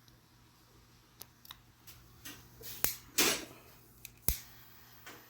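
Scattered sharp clicks and snips from hand tools working electrical wire and crimp connectors, about half a dozen, the sharpest a crisp snap about four seconds in.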